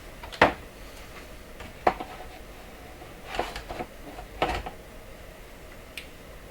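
Small clicks and knocks of parts and tools being handled on a workbench, a handful of separate sharp taps with a short clatter in the middle, over a steady faint hiss.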